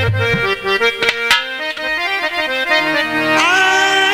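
Harmonium playing a held, stepwise melody as the instrumental introduction to a ghazal in a nautanki ensemble, with low drum thumps at the start and a couple of sharp drum strokes about a second in.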